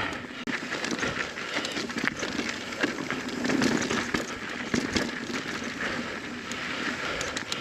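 Mountain bike rolling along a dirt trail: steady tyre noise on dirt and gravel, with frequent clicks and rattles from the bike.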